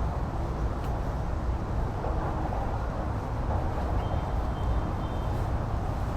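Steady low rumble and hiss of outdoor background noise, with a faint high tone briefly about four seconds in.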